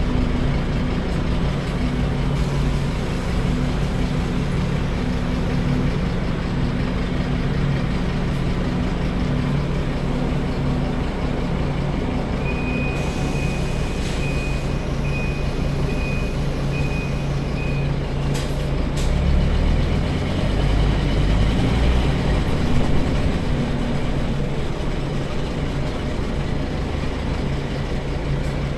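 Scania DC9 five-cylinder diesel engine of a Scania K310UD double-decker bus running steadily. Near the middle a run of high electronic beeps sounds for about five seconds, followed by a couple of sharp clicks and a deeper rumble lasting a few seconds.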